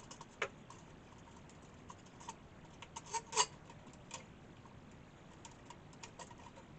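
Scattered light clicks and taps from hands and tools moving parts and wiring inside an old valve oscilloscope's chassis, with a louder pair of knocks about three seconds in.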